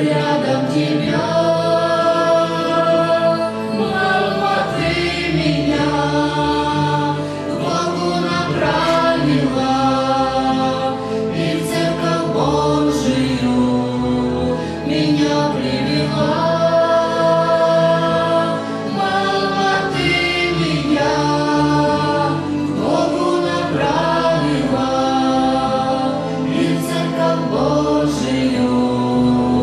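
Music: a spiritual song sung by several voices together on long held notes, over a steady low accompaniment.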